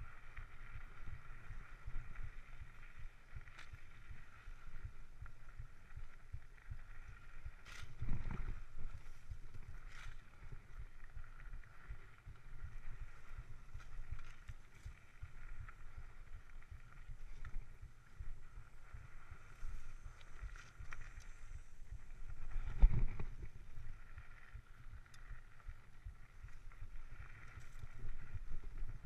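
Mountain bike rolling over a bumpy dirt singletrack, heard from a chest-mounted camera: a steady rumble of tyre and frame vibration with small clicks and rattles, and two heavy thumps from bumps about 8 seconds and 23 seconds in, the second the loudest.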